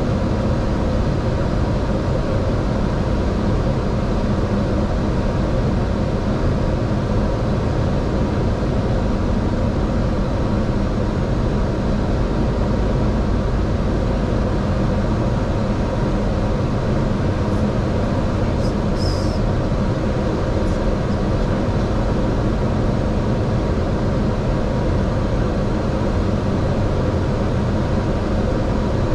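Steady cockpit noise of an airliner descending to land: airflow rushing over the windscreen and a constant engine hum with a few faint steady tones. A brief faint high chirp comes about two-thirds of the way through.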